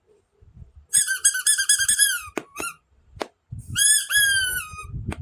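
High-pitched squeaks from a toy being handled: a quick run of wobbling squeaks, then one longer squeak that falls in pitch, with a few sharp plastic clicks in between and near the end.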